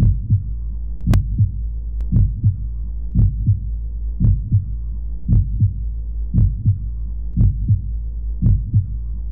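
Heartbeat sound effect: a slow double thump, lub-dub, repeating about once a second over a steady low hum.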